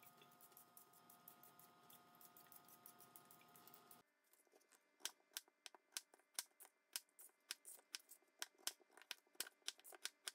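Tap water running into a stainless steel sink while potatoes are washed, then, about four seconds in, a kitchen knife chopping peeled potatoes on a plastic cutting board: sharp knocks of the blade hitting the board, about three a second and unevenly spaced.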